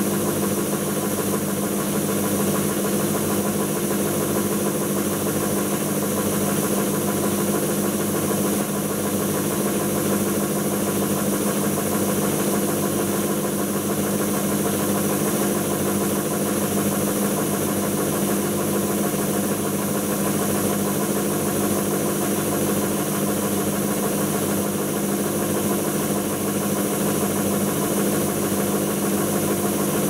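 Siemens iQ WIQ1430 front-loading washing machine in its interim spin at about 400 rpm: a steady motor whine over a low hum and vibration from the spinning drum, holding one speed throughout.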